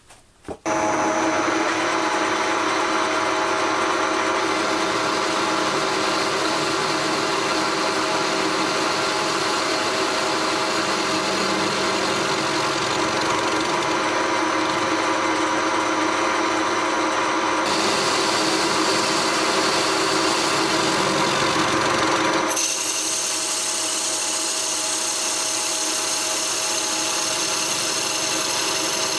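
Metal lathe running while a single-point tool faces a cast iron workpiece: a steady machining noise with a hum of fixed tones. It starts abruptly just after the start and changes in tone twice in the last third.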